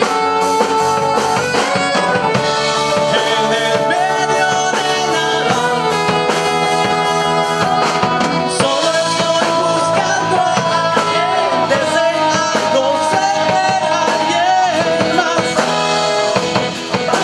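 A rock band playing a song: male lead vocals over saxophone, electric and acoustic guitars and a drum kit.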